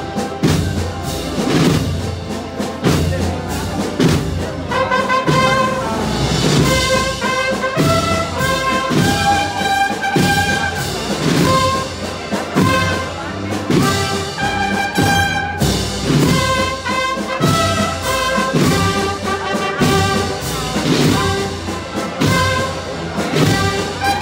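A wind band of brass and drums plays a slow processional march behind a Holy Week–style paso, with a steady drum beat. The brass melody comes in about five seconds in.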